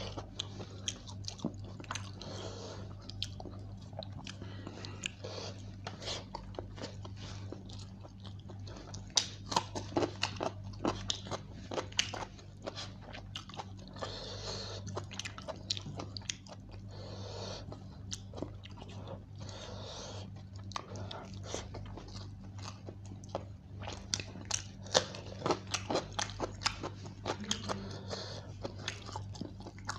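Close-miked chewing and mouth noises of a person eating chicken biryani by hand, with many irregular sharp clicks and fingers working the rice on a steel plate. A steady low hum runs underneath.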